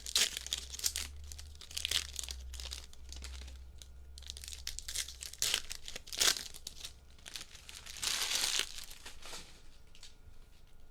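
Foil trading-card pack wrappers being torn open and crinkled by hand, in repeated bursts of rustling, the longest about eight seconds in.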